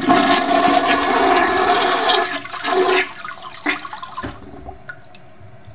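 Rushing water sound like a toilet flushing, loudest for about the first two seconds, then tailing off and dying away about four seconds in.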